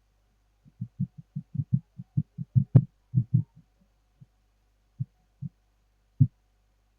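A run of soft, low knocks, about five a second for some three seconds, then three single knocks spaced apart: handling and tool contact on a phone-repair bench while a CPU chip is cleaned.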